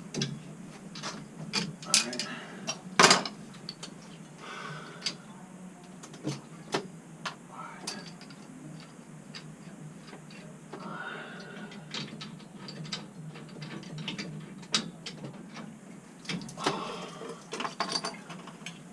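Irregular metal clicks and clanks of hand tools working on plumbing fittings, loudest about three seconds in.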